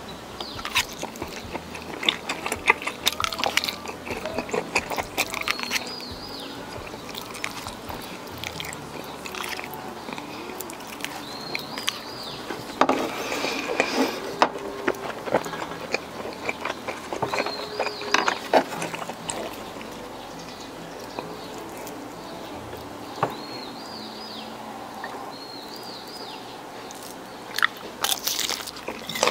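A person eating close to the microphone: crisp crunching bites and chewing at an uneven pace, with the loudest crunches scattered through.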